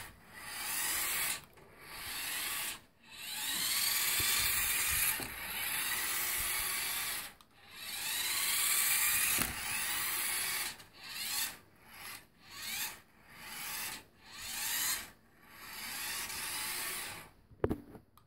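A toy remote-control car's small electric motor and gearbox whirring in repeated stop-start bursts, each lasting a second or two. The whine rises in pitch as the car picks up speed.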